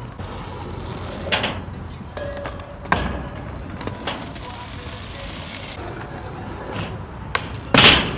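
Skateboards on a skatepark pyramid: wheels rolling and the deck clacking and slapping against the ramp in several separate knocks, the loudest near the end as a skater rides onto the pyramid.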